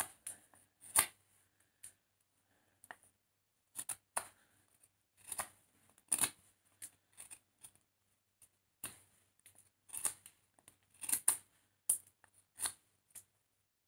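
A knife blade whittling a wooden butter-knife blank by hand: short, irregular shaving cuts, about one or two a second. The cuts are taken with force through hard wood near a knot where a branch grew out.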